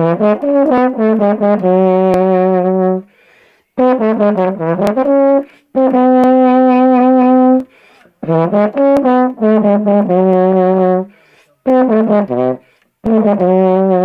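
Baritone horn playing a solo melody in short phrases with brief breath gaps between them, some held notes with a wavering vibrato.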